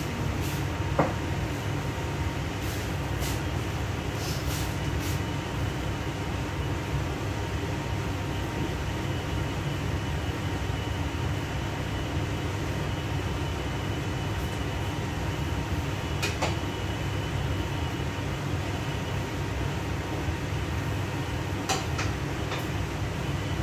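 Steady rushing kitchen-stove noise: a covered wok steaming over a lit gas burner under the range hood, with a few light clinks of dishes here and there.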